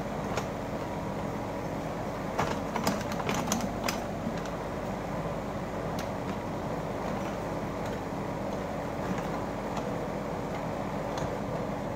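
Kubota U50 mini excavator's diesel engine running steadily under work, with a quick run of sharp cracks and clanks about two and a half to four seconds in.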